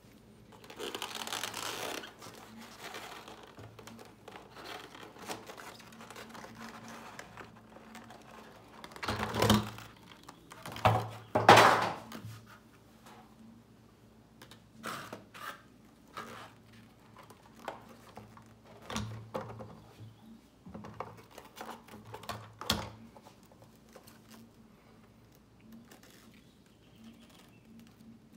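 Clear plastic clamshell packaging being handled and opened, crinkling and crackling, with the loudest plastic crackles and knocks about nine to twelve seconds in. Then lighter clicks and rustles as the diecast truck and trailer are handled on cloth.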